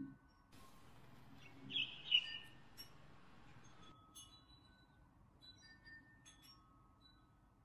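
Soft background music of scattered chime-like notes that ring and fade. A faint hiss runs through the first half, and a brief louder high-pitched sound comes about two seconds in.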